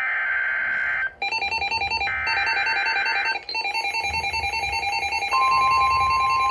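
Emergency Alert System header on NOAA Weather Radio: two harsh, buzzing SAME data bursts over rapid pulsing electronic beeps, then about five seconds in the steady 1050 Hz warning alarm tone starts, signalling a severe weather warning.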